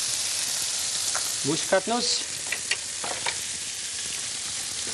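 Small Knöpfle dumplings frying in a pan: a steady sizzle, with a few light clicks about halfway through.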